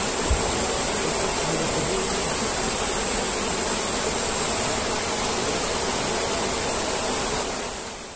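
Fast-flowing river water rushing steadily, fading out near the end.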